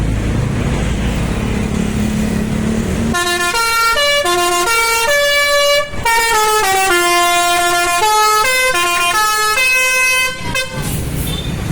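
Engine and road noise, then about three seconds in a bus's Basuri musical "telolet" horn plays a melody of sustained notes that step up and down in pitch for about seven seconds, stopping shortly before the end.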